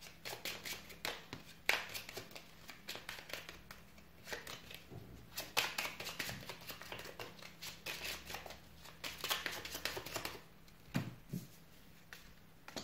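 A deck of Lenormand cards being shuffled by hand: an irregular run of soft clicks and flutters as the cards slide against each other. Near the end, a couple of duller taps as cards are laid on the table.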